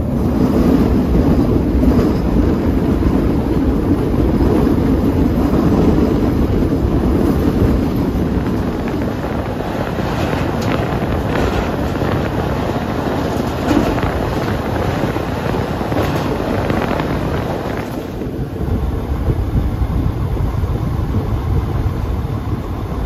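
Running noise of a PESA Link diesel multiple unit: a steady low rumble of engine and wheels on the track, with wind on the microphone. A run of short clicks comes in the middle, and about three-quarters through the noise softens as the train slows for the station.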